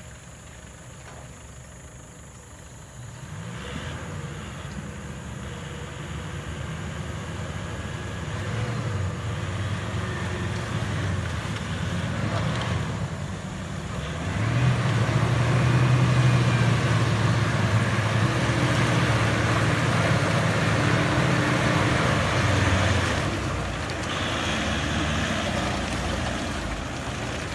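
A motor vehicle's engine running under load while driving off-road, with a steady low drone. It grows louder a few seconds in, is strongest through the middle, and eases off near the end.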